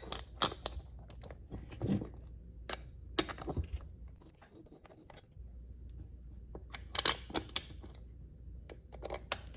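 Small metal parts and hand tools clinking and tapping in irregular, sharp clicks. The loudest cluster of clinks comes about seven seconds in.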